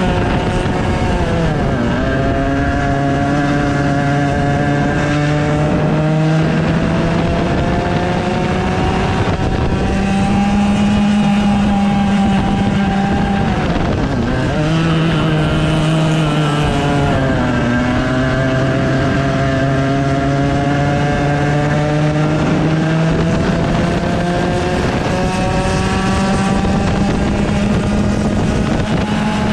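100cc two-stroke kart engine heard from onboard, its pitch climbing steadily on the straights and dropping sharply three times as the kart slows for corners.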